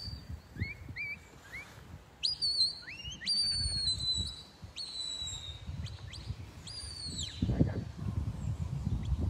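Shepherd's whistle commands from a sheepdog handler to his working dog. First come a few short rising chirps, then several longer whistles that sweep up to a high note, hold it and drop away.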